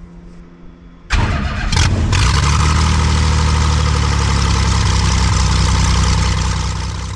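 Jabiru aircraft engine of a Sonex homebuilt airplane starting: it cranks and catches about a second in, runs rough for a moment, then settles into a steady, loud idle.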